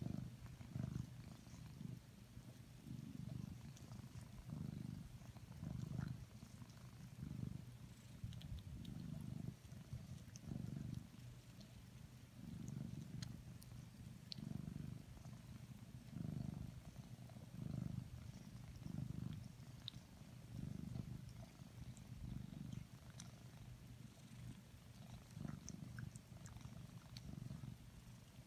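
Domestic cat purring close up, a low rumble that swells and fades with each breath about once a second. Faint small ticks of its tongue as it licks its paw while grooming.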